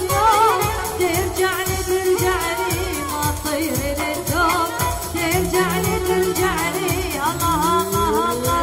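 Woman singing an Arabic pop song with wavering, ornamented melodic runs, backed by a band with a steady drum beat.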